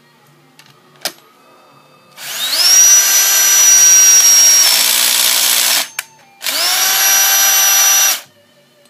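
Power tool driving a homemade stud installer to pull wheel studs into a hub: two runs, each spinning up with a rising whine and then holding steady, the first about three and a half seconds long with a shift in its sound partway through, the second about two seconds. A single sharp click comes about a second in.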